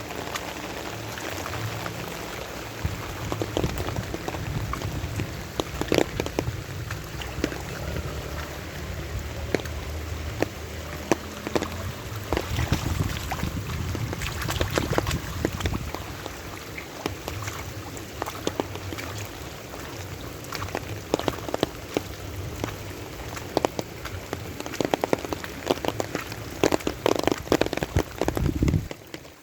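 Steady rain falling, with many sharp drops striking close by over a low rumble.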